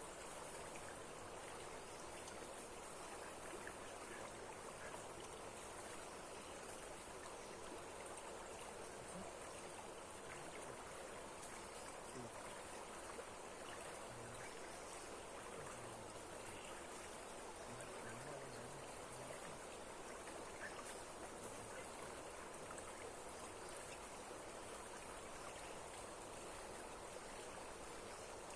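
Steady rush of a waterfall running strong, an even wash of water noise that does not change.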